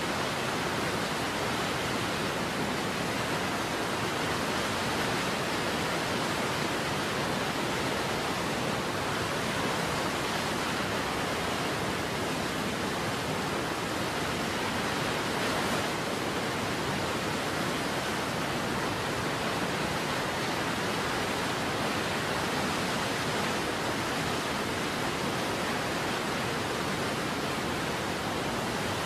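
Steady, unchanging rushing noise of a waterfall.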